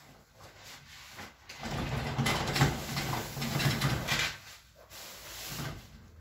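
A white sheet rustling as it is lifted, spread and smoothed by hand over a massage table, loudest from about two to four seconds in, with a shorter rustle near the end.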